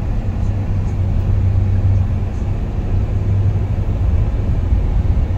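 Steady low rumble of a Nissan NV350 van's engine and tyres on the road, heard from inside the cabin while driving at an even speed.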